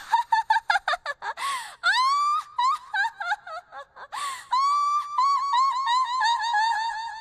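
A young woman's high-pitched, drawn-out 'oh-ho-ho' laugh in the manner of a haughty rich young lady: strings of quick pulses broken by sharp gasping inhales about a second and a half and four seconds in, the last string held longest.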